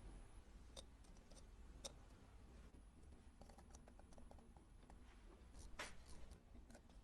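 Near silence with a few faint, sharp clicks and taps of small tools on a wristwatch's parts: single clicks about one and two seconds in, a quick run of small ticks around the middle, and a louder click near the end.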